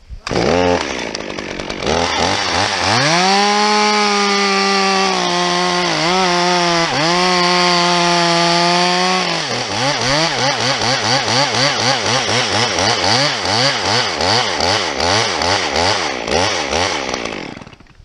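Two-stroke top-handle chainsaw cutting through a roped tree limb: it revs up over the first two seconds and runs at full throttle with brief dips as the chain bites. From about halfway its speed rises and falls about twice a second, and it dies away near the end.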